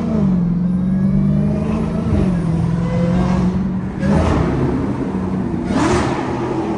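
Dodge Hellcat's supercharged 6.2-litre HEMI V8 running at low speed, its note mostly steady with small dips in pitch. Two short bursts of noise come through about four and six seconds in.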